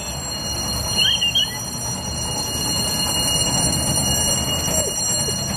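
Baldwin Mikado steam locomotive approaching with its train, a steady rumble growing slowly louder, mixed with street traffic. A brief high chirp about a second in.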